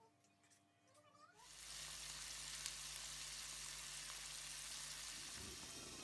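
Steady cooking hiss from a pot of liquid with scallion and hot pepper on the stove, starting suddenly about a second and a half in, with a low hum beneath it.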